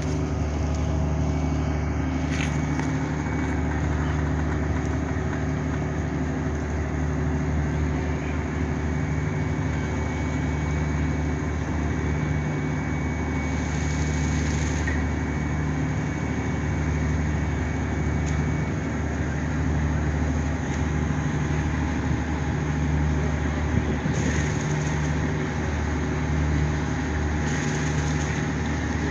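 A large engine idling steadily, a deep, even hum that holds one pitch throughout.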